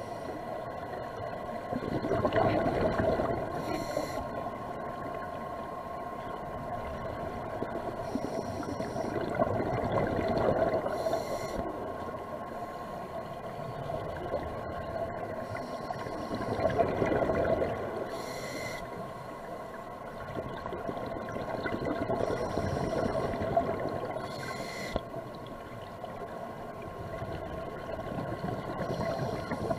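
Scuba diver's breathing through a regulator heard underwater, with slow breaths and bubbles swelling about every six or seven seconds. A steady hum runs underneath.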